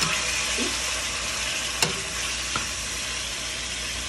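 Diced raw chicken sizzling in olive oil in a skillet as it is stirred with a silicone spatula, starting to brown. A sharp knock comes about two seconds in, with a fainter one shortly after.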